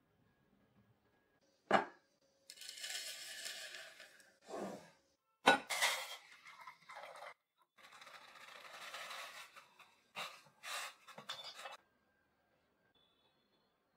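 Water poured into a stainless steel cooking pot, in separate short pours. Sharp metallic knocks come before them, the loudest about five and a half seconds in, and a few quicker knocks and clinks follow near the end.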